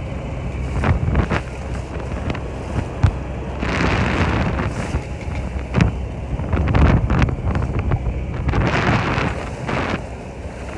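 Strong wind buffeting the microphone on a sailing yacht's deck in rough sea, with water rushing and breaking along the hull in two louder surges, about four and nine seconds in.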